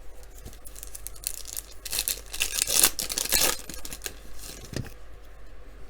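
A trading-card pack wrapper being torn open and crinkled, the rustling loudest from about two to three and a half seconds in.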